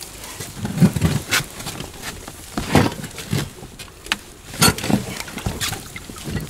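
Irregular splashes and knocks as metal pipes and poles are handled and pushed down into the river water, about half a dozen strokes at uneven intervals.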